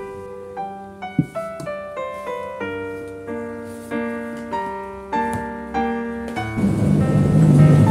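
Gentle solo piano background music, a run of single notes each fading out. Near the end a steady low rumbling noise comes in and grows louder than the music.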